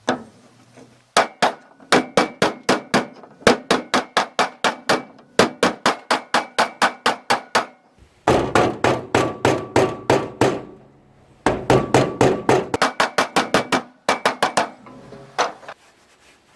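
Hammer blows on a bent steel part of a McCormick International B46 baler, straightening it flat: rapid ringing metal strikes at about three to four a second, in four runs with short pauses between.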